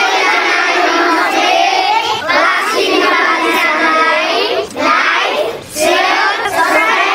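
A child singing a Nepali song, with other children's voices mixed in.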